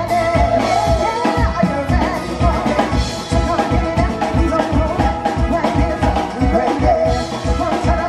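Live band playing an upbeat song: a woman singing over electric guitar and a drum kit, with a steady beat.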